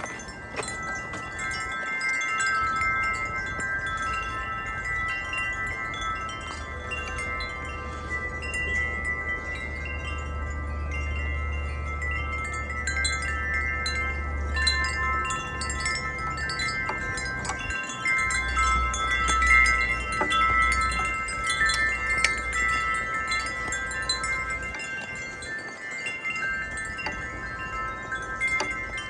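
Wind chimes ringing continuously in the wind, many overlapping sustained tones struck again and again. Low wind rumble on the microphone swells in gusts, twice.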